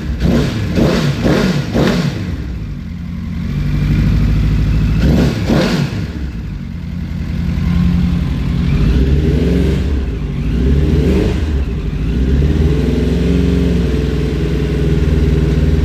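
Honda CBR1000RR Fireblade's inline-four engine running, blipped several times in quick succession at the start and again about five seconds in, then running on with smaller rises in revs. The owner has the bike checked for a knocking noise from the engine.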